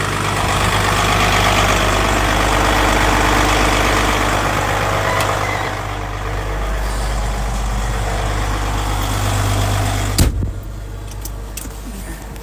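Caterpillar D9T bulldozer's big diesel engine running while still cold, a deep steady drone with heavy rattling noise that eases about halfway through. A single sharp knock comes about ten seconds in, and the sound drops after it.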